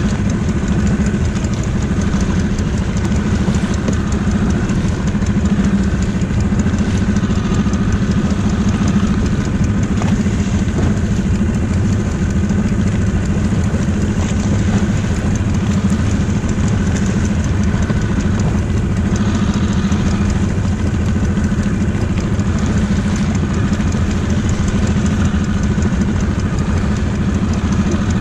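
Small outboard motor on an inflatable dinghy running steadily, with an even, unchanging engine hum.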